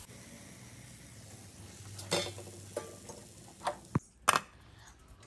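Faint sizzle of hot oil frying nendran banana fritters, then a handful of sharp metallic clinks as the wire spider strainer knocks against the pan and dishes.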